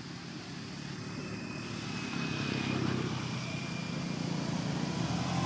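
An engine running steadily, getting louder over the first few seconds.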